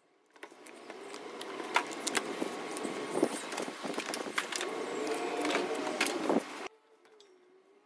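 Raw meat being tipped from plastic trays into a stainless steel mixing bowl: a steady clatter of trays knocking the bowl, with many sharp clicks and soft slaps of meat. It stops abruptly near the end.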